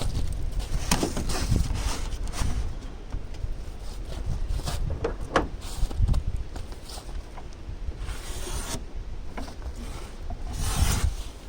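Rigid foam insulation board being cut and handled: scraping and rubbing with scattered knocks, and a couple of longer scratchy strokes near the end.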